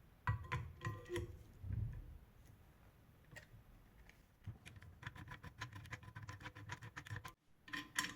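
Faint metal clicks and taps from a hand rivet nut tool and an M8 rivet nut being handled, a few at first, then a quick run of light clicks with a slight metallic ring from about halfway; the sound cuts off suddenly near the end.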